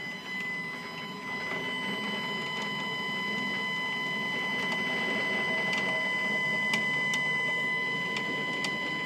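Stepcraft 840 CNC router's stepper motor driving the gantry along the Y-axis lead screw: a steady high whine over a rough mechanical hum, a little louder from about a second in.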